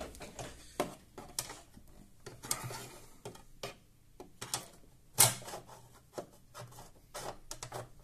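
Scattered light clicks and knocks of a 2.5-inch SSD being handled and tried against a desktop PC's metal chassis and drive bay, with one sharper knock about five seconds in.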